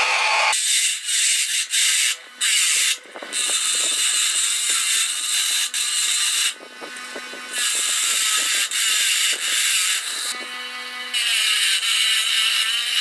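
Bench grinder's abrasive wheel grinding the edge of a round steel plate: a harsh hiss over the grinder's steady hum. The hiss breaks off several times as the piece is eased off the wheel and turned.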